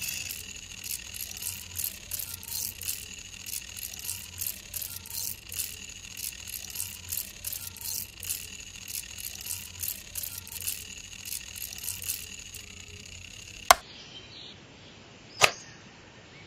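Miniature bench grinder's small DC motor whining while a steel knife blade is pressed to the spinning grinding wheel in repeated rasping strokes, about two a second, sparking as it sharpens. After the grinding stops, two sharp clicks about a second and a half apart near the end.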